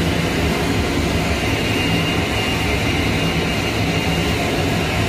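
Steady roar of fast-flowing river water pouring out below a dam.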